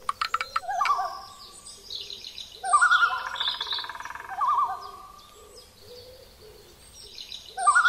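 Bird calls with wavering, quavering notes: a short call at the start, then a long trilling call about three seconds in, and the same call beginning again near the end.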